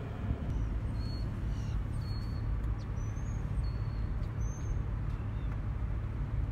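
Low rumble of wind buffeting the microphone, with a bird's several short, high chirps between about one and five seconds in.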